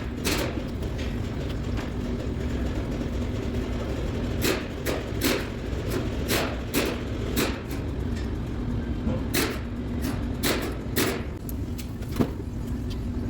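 A series of short sharp clicks and knocks, some coming about one every three-quarters of a second, over a steady low hum of workshop background noise.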